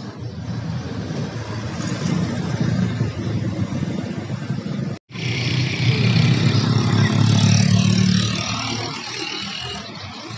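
Road traffic passing on a highway: vehicles going by, with one louder, closer pass about two-thirds of the way in that then fades. The sound drops out for an instant at the halfway point.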